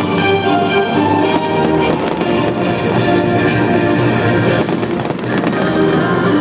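Fireworks going off over music: repeated, irregular bangs and crackles mixed with music playing held notes.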